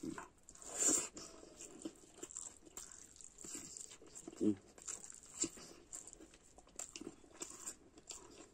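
Close-up eating sounds: chewing, wet mouth smacks and crunchy bites of fried food, with a brief pitched vocal sound about four and a half seconds in.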